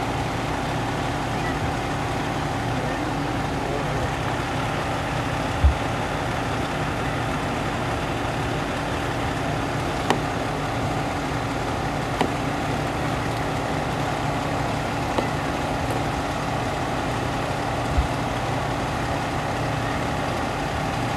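Fire truck engine idling steadily, a constant drone with a low hum, broken by a few short knocks and thumps, the loudest about six seconds in.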